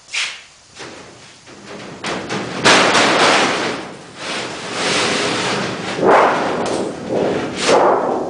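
A thin aluminium wing-skin panel from a Cessna 180 wing being pulled free and lifted, the loose sheet flexing, wobbling and rattling in swelling rushes from about three seconds in. A few sharp knocks come in the first second.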